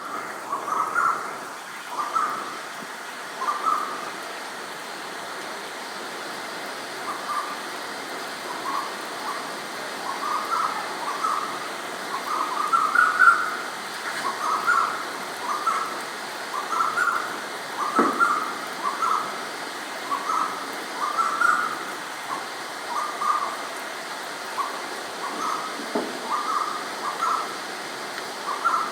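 Asian koel (koyal) calling over and over, short whistled calls repeated throughout, one series climbing in pitch and loudness a little before the middle, over the steady hiss of rain. An occasional brief knock.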